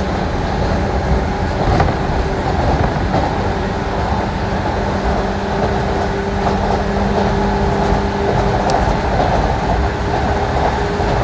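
185 series electric train running at steady speed, a continuous rumble of running and rail noise with a steady low hum.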